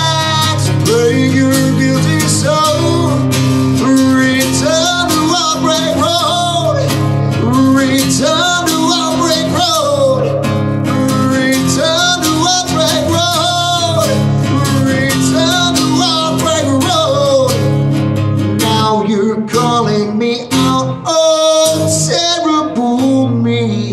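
A man singing live with a strummed acoustic guitar. In the last few seconds the playing turns stop-start, with short gaps between chords.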